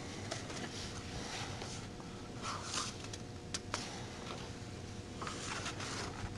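Picture book being handled: soft paper rustles and a few light clicks and taps, over a faint steady hum.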